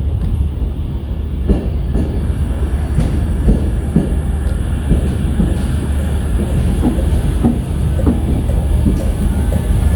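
Train running slowly through the station: a steady low rumble with the wheels clacking over rail joints and points, and a thin high wheel squeal in the later part.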